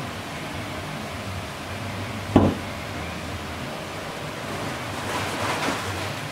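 Steady hiss with hands handling Play-Doh and small plastic pieces on a cloth-covered table: one short thump about two and a half seconds in, and a rustling scrape near the end.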